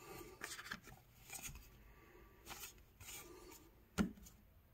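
Baseball trading cards being handled: faint slides and rustles of cards against one another. About four seconds in there is a sharp tap as the stack is set down on the table.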